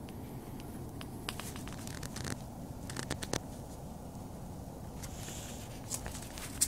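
Steps crunching in fresh snow: scattered light crackles and scrapes, in two clusters, over a steady low rumble.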